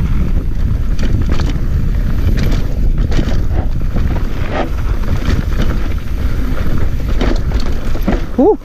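Mountain bike descending a rough dirt singletrack at speed: steady wind rush on the camera microphone over the rumble of the tyres, with scattered rattles and clicks from the bike over roots and rocks. A short rising squeak near the end, after which the noise drops away.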